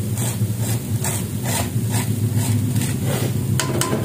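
Wooden spatula scraping fried anchovies out of a wire-mesh strainer into a wok, in short repeated strokes about two a second, over the sizzle of the frying petai and sambal.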